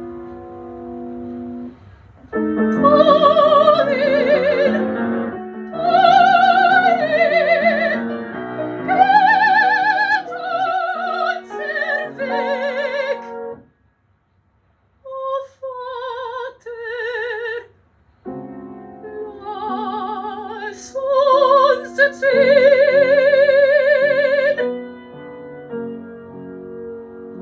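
Soprano singing with strong vibrato over piano accompaniment in a German art song. About halfway through the music stops for about a second, a short vocal phrase follows with almost no piano, then voice and piano return. The piano plays alone near the end.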